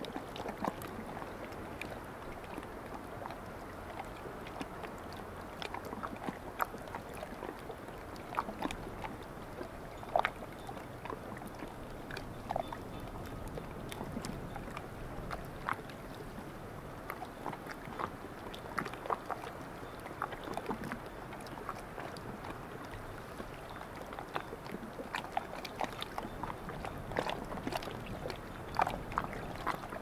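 Small waves of a calm sea lapping at the shore: a steady wash with many brief little splashes at irregular intervals.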